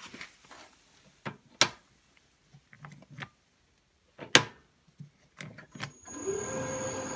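Sharp clicks as the control switches of a 1979 Boxford AUD Mk III lathe are worked. About six seconds in, the lathe's electric motor starts, rising briefly in pitch as it spins up, then runs with a steady hum and high whining tones.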